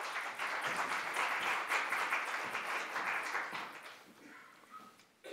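Audience applauding in an auditorium: a dense patter of many hands clapping that fades out about four seconds in.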